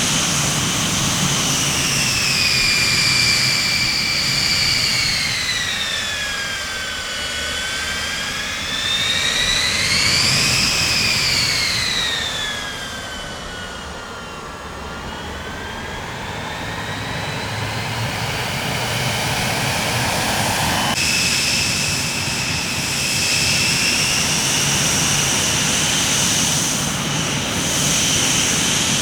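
Jet aircraft engines with a high turbine whine over a steady rush; the whine falls in pitch, rises briefly about ten seconds in, falls again, then holds steady after an abrupt change about two-thirds of the way through.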